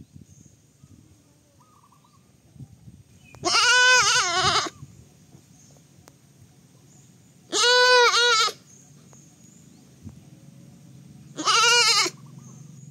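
Baby goat bleating three times, each bleat about a second long and a few seconds apart.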